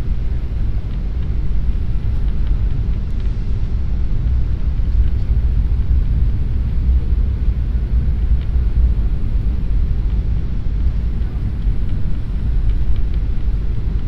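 Steady low rumble of an airliner's engines and airflow, heard inside the cabin on approach to landing.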